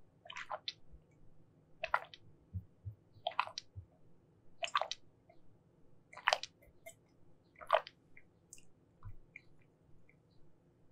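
Close-mic chewing of sugar-coated jelly candy: six moist, squishy chews about a second and a half apart.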